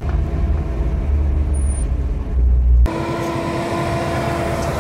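A motor vehicle running steadily with a heavy low rumble. About three seconds in it changes abruptly to a lighter, steady engine hum with a constant pitch.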